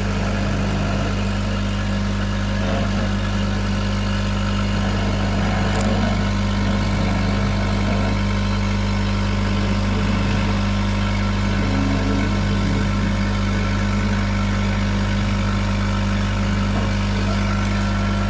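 K40 CO2 laser cutter running while it cuts shapes out of a thin wood sheet: a steady low hum from the machine.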